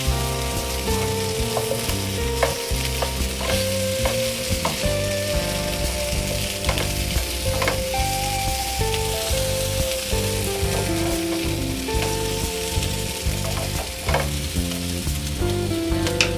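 Chopped potatoes and capsicum sizzling in a hot frying pan while a wooden spatula stirs them, with scattered scrapes and knocks of the spatula against the pan.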